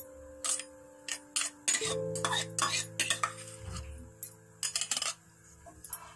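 Irregular clinks and taps of metal against a stainless steel cooking pot holding boiled palm fruit peel.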